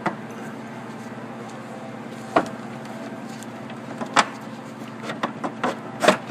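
Black plastic upper intake manifold of a Ford Windstar V6 being worked down into place by hand, giving a handful of sharp knocks and clicks against the engine, the loudest near the end. A steady low hum runs underneath.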